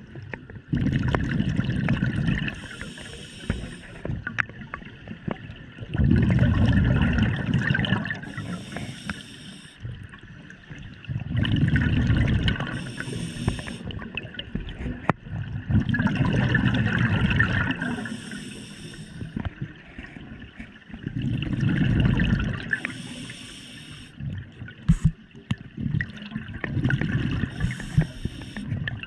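Scuba diver breathing through a regulator underwater, about six breaths: each is a rumble of exhaled bubbles followed by a shorter hissing inhalation through the demand valve, repeating about every five seconds.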